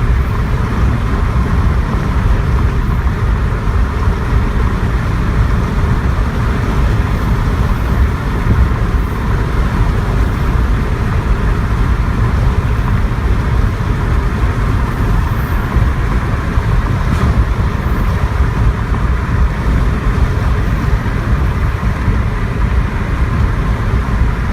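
A vehicle driving along steadily: a constant low rumble of engine and road noise.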